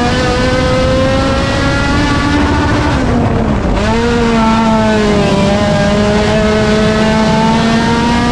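Honda race car engine running hard at high, steady revs. About three and a half seconds in the revs dip briefly, as when lifting off the throttle for a turn, then climb back and hold.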